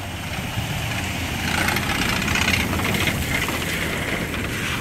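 An engine running steadily, swelling louder for a moment midway.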